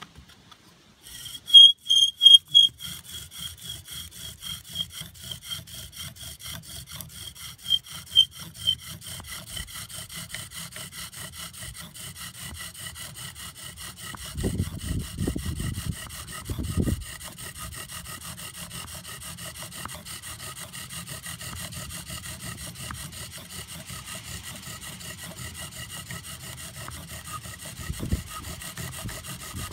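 Bow drill at work: the wooden spindle grinds in the hearth board in steady back-and-forth strokes of the bow. A high squeal rides on the strokes for the first several seconds, then settles into a dry rhythmic rubbing, with a few low bumps in the middle and near the end.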